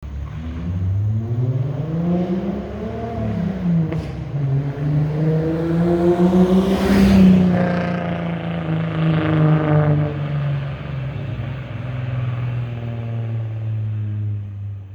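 1985 Toyota Cressida's engine heard through an exhaust of OBX headers, the stock catalytic converter and 2.5-inch pipe. The engine revs up and back down, then climbs to its loudest about halfway through, and settles into a steadier note that slowly falls away.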